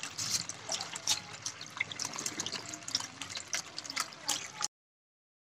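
Water from a homemade plastic-bottle fountain pouring out of two bottle spouts and splashing and trickling into a shallow tray of pebbles and water. It cuts off suddenly about a second before the end.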